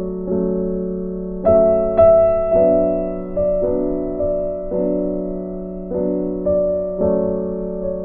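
Slow, soft background piano music. Notes and chords are struck about once a second and left to ring and fade over a low held tone.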